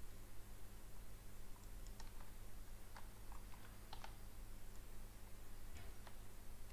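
Faint, scattered clicks of a computer mouse and keyboard, coming singly and in small groups, over a low steady hum.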